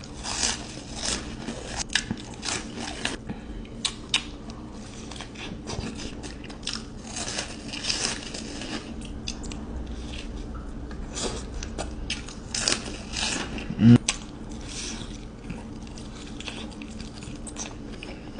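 Close-miked eating: a run of crunchy bites and chewing. There is a short voiced sound, like a hum, about fourteen seconds in.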